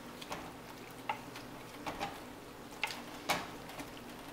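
Stirring chunky stewed tomatoes and vegetables in a large stainless steel pot, with a spoon clicking and tapping against the pot about half a dozen times at uneven intervals over a steady low background.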